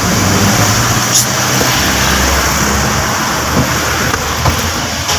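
Vehicle engine idling steadily, with a sharp click about a second in and another near the end.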